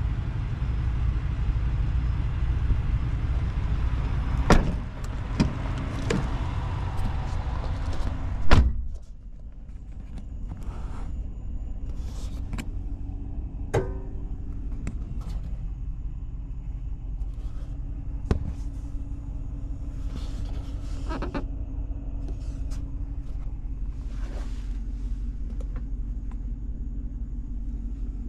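Loud outdoor noise and a few knocks, cut off about nine seconds in by a heavy thud like a pickup truck door being shut. After that there is a steady low hum inside the closed cab, with scattered small clicks and knocks.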